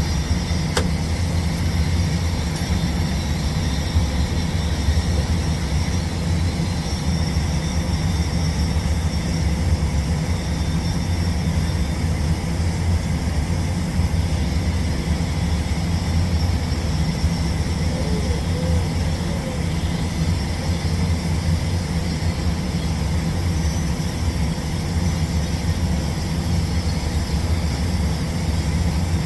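Steady low machine drone with a faint hiss above it from TIG pipe-welding equipment running through a root pass, unchanging throughout.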